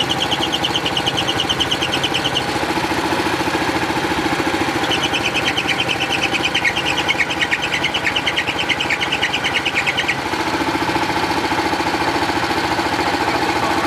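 Munckhof Pluk-O-Trak's engine running steadily, with a rapid, chattering high-pitched squeal from the belt drive that comes twice: for about two seconds at the start, and for about five seconds from about five seconds in. The owners take the squeal for the V-belt slipping, and say something is not quite right.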